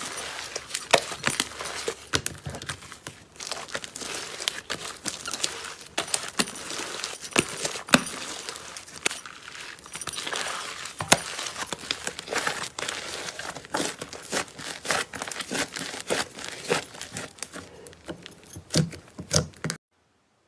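Slime being squished and stretched by hand, a dense irregular run of sticky clicks and pops; it cuts off suddenly near the end.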